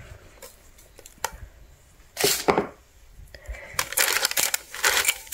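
Baking parchment crinkling and rustling as a hand pats and presses floured dough in a parchment-lined pot. A few light taps come early, a short burst of crinkling about two seconds in, then denser crinkling from nearly four seconds on.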